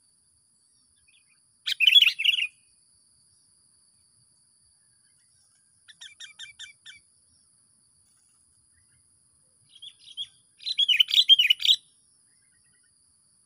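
A perched songbird used as a decoy (pikat) singing in three bursts: a loud warbled phrase about two seconds in, a quieter run of about seven short notes around six seconds, and another loud warbled phrase near eleven seconds. A faint steady high-pitched whine runs underneath.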